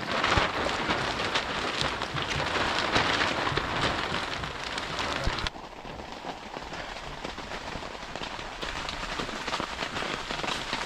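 Rain falling on a plastic-sheet shelter, a dense hiss of many small drop ticks. It drops suddenly to a quieter level about halfway through.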